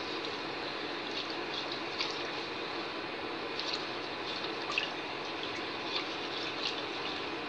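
Wire whisk stirring a thin mixture of cornstarch and water in a metal pot as it heats, liquid sloshing with scattered light clinks of the whisk against the pot, over a steady background hiss. The mixture is kept moving so the starch does not stick to the bottom while it thickens.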